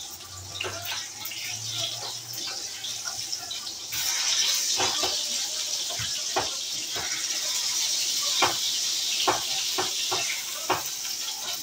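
Hamburger patties sizzling in a frying pan, the sizzle getting louder about four seconds in, with a metal spatula scraping and tapping against the pan several times.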